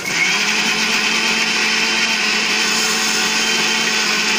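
Electric mixer grinder with a steel jar switched on and running at a steady speed, grinding blanched spinach to a paste without water, with a steady hum under the whirr.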